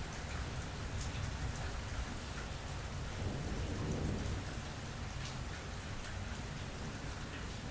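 Steady rain falling, with scattered drops ticking on surfaces, and a low roll of thunder swelling near the middle.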